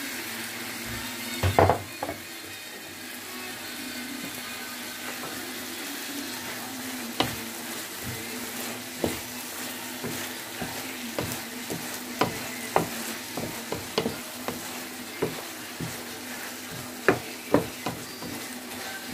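Chicken and vegetables sizzling in a frying pan while a wooden spatula stirs them, knocking and scraping against the pan. A few loud knocks come about a second and a half in, and the spatula knocks come often from about seven seconds on.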